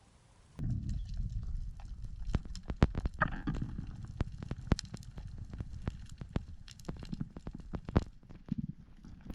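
Underwater sound as heard through a camera housing: a steady low rumble of water moving around it, with many sharp irregular clicks and knocks. It starts abruptly about half a second in.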